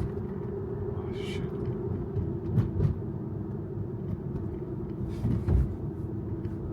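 Steady low road and tyre rumble inside the cabin of a moving Tesla electric car, with a few brief bumps and a short higher-pitched sound about a second in.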